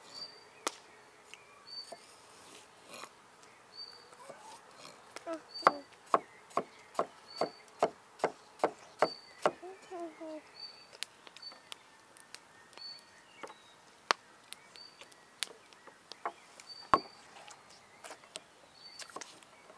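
Knife chopping on a cutting board: a quick run of sharp strokes about two a second in the middle, with scattered single taps before and after. A short high chirp repeats about once a second in the background.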